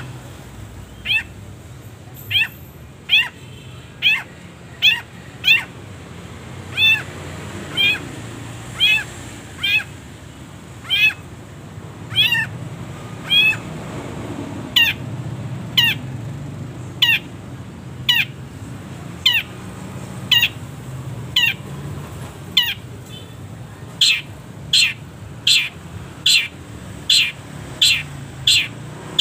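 Long-tailed shrike (cendet) giving a long series of short, sharp, downward-slurred calls, about one a second, quickening to nearly two a second near the end.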